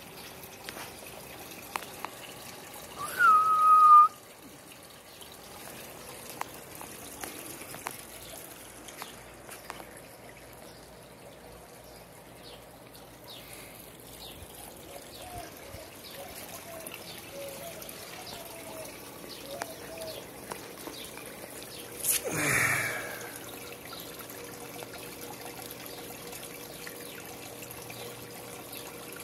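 Water trickling steadily over the stone ledges of a small garden pond waterfall into the pool below. A loud steady whistle-like tone lasting about a second cuts in a few seconds in, and a short loud burst of noise comes about two-thirds of the way through.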